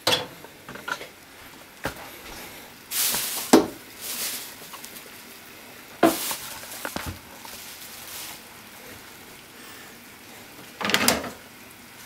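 Kitchen handling sounds: a microwave oven door shut with a clunk at the start, then knocks and rustles as a plastic microwave pasta cooker is carried off, with a sharp clack about six seconds in as it is set down in a stainless steel sink, and another short clatter near the end.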